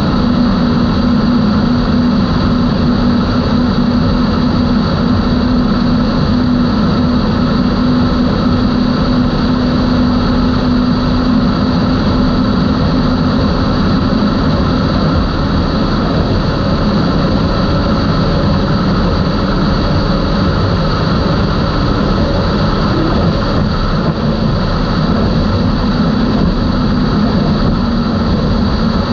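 Outboard engines of a Skater 32 catamaran running flat out at a steady cruise, a loud unbroken drone with no change in pitch.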